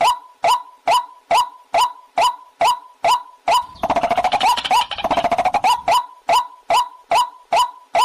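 Recorded waterhen (jal murgi) calls played on a loop as a hunting lure: a short call repeats evenly about twice a second, and from about halfway through a two-second run of fast, crowded calls breaks in before the steady calling resumes.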